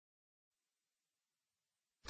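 Near silence, with only a very faint hiss from about half a second in.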